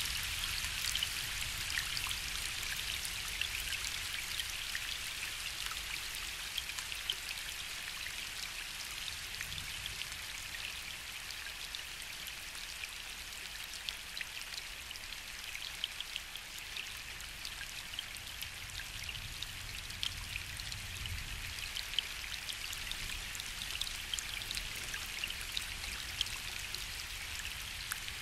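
Gentle steady rain falling on a lake, with individual drops ticking through the hiss. A faint low rumble of distant thunder swells about two-thirds of the way in.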